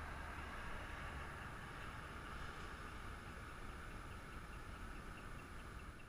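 A heavy truck passing along the road, heard as a steady low rumble with a hiss of tyres and engine, the rumble easing after the first couple of seconds.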